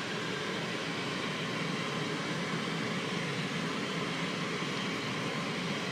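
Steady, even rushing background noise with no distinct sounds standing out of it.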